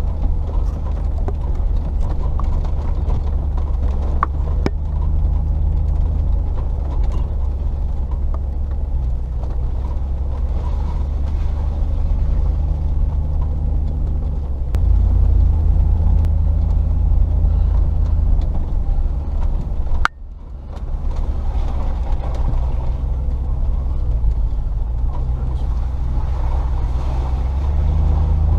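Range Rover P38's 4.0-litre V8 engine running at low revs while the vehicle drives a rough track, with scattered light clicks and knocks. The engine note grows louder about fifteen seconds in, and the sound drops out abruptly for a moment about twenty seconds in before picking up again.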